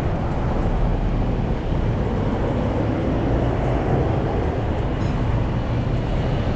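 Street traffic: the steady low rumble of passing vehicles.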